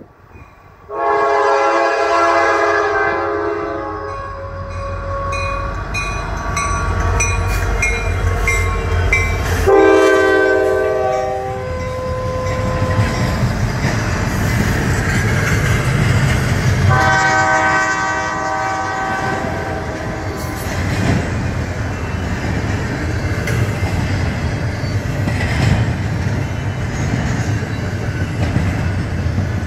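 Diesel locomotives of a Norfolk Southern intermodal train pass while the lead unit sounds its air horn in three long blasts: about a second in, about ten seconds in, and about seventeen seconds in. Under the horn the engines rumble low, followed by the steady rumble and clatter of the cars rolling by.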